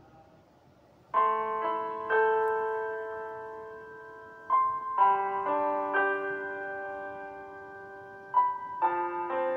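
Background music: a slow piano piece, with notes and chords struck and left to ring and fade. It starts about a second in.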